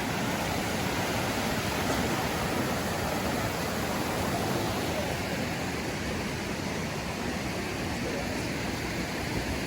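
Steady rushing of flowing water from a stream or small waterfall.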